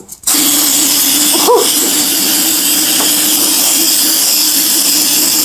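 Aerosol deodorant can spraying in one long, steady hiss.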